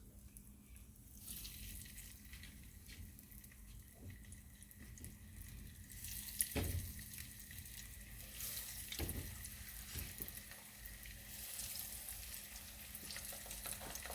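Breaded chicken cutlets sizzling faintly in olive oil heated to about 330 °F as they are laid into the pan, the sizzle starting about a second in. A couple of soft knocks of the cutlets or fork against the pan.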